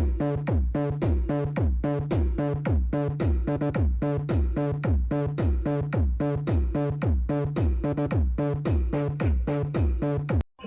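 Electronic dance music played over a mobile sound system's speakers: a heavy kick drum, falling in pitch on each hit, about two beats a second under a steady synth line. It cuts off suddenly just before the end.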